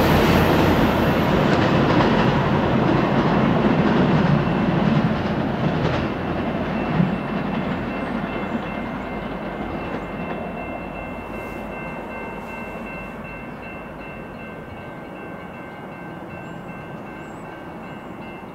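VIA Rail passenger train's cars rolling away at speed, with wheels clattering on the rails. The rumble fades steadily as the train recedes, with a single sharp knock about seven seconds in. A faint steady chord of high tones holds through the second half.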